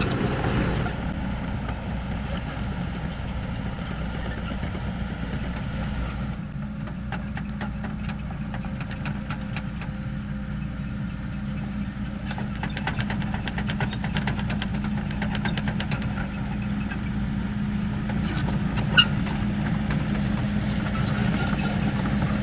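Kobelco SK75 excavator's diesel engine running steadily with a constant hum, with stretches of fast light ticking and one sharp click near the end.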